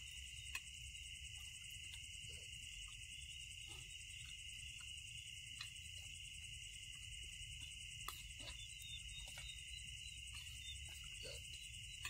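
Steady night chorus of crickets and other insects, with faint scattered clicks and taps now and then.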